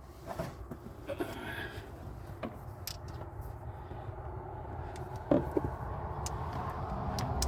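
Scattered short clicks and knocks of hand tools as a wrench is fitted to an oil drain plug under a pickup truck. The low rumble of passing road traffic swells near the end.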